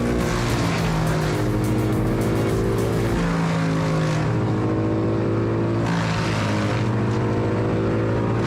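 Energetic electronic background music: sustained synth notes stepping between pitches over a steady driving bass pulse.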